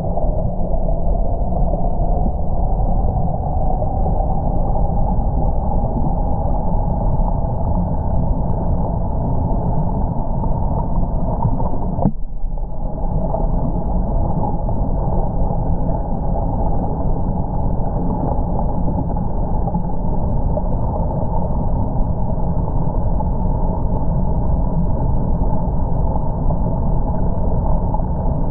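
River water rushing and pouring over rocks at a small falls, heard as a steady deep rumble with nothing high or hissing in it. It breaks off for an instant about twelve seconds in.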